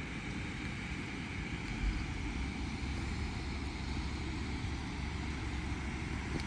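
Steady low rumble and hiss of wind buffeting the microphone outdoors. The rumble grows stronger about two seconds in.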